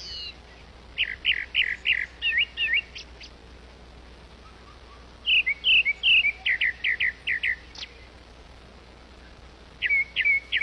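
Grey-backed thrush singing: three phrases of quick, loud, repeated whistled notes, with short pauses between them.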